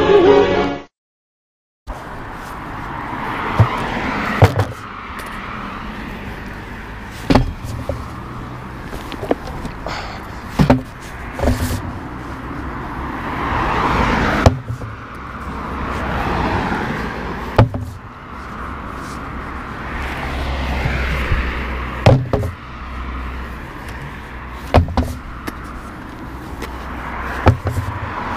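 Under a second of music, then after a short gap the steady running and road noise of a slow-moving works vehicle. Sharp hollow knocks come every two to three seconds as plastic traffic cones are lifted off the road and stacked.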